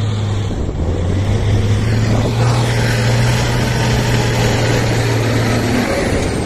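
Diesel engine of a trial truck running hard under load as it climbs a steep slope: a loud, steady deep drone, with more hiss and rattle joining after a couple of seconds and the steady note breaking off shortly before the end.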